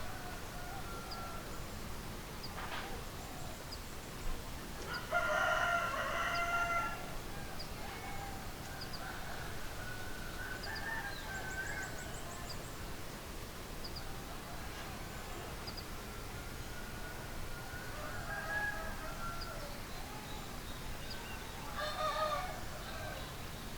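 Rooster crowing: one loud crow about five seconds in lasting about two seconds, then fainter calls, and another crow near the end. Short high chirps are scattered throughout.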